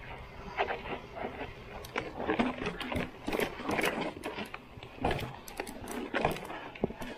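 Mountain bike rattling down a steep, rocky trail: a run of irregular clicks and knocks as the tyres strike stones and the chain and frame clatter.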